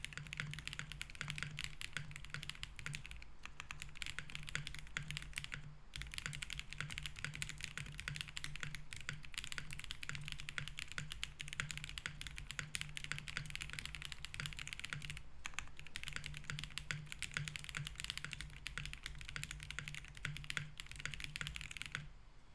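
Continuous typing on a Link65 mechanical keyboard with BSUN Roselle switches on an FR4 plate, a dense stream of key clacks. There are brief pauses about six and fifteen seconds in, and the typing stops just before the end.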